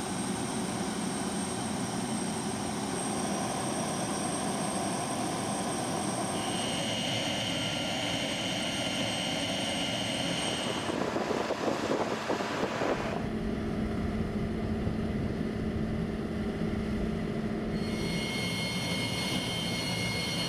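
Jet aircraft engines running with a steady high whine over a broad rush. The sound shifts at several cuts, with a deeper rumble from about 13 seconds in.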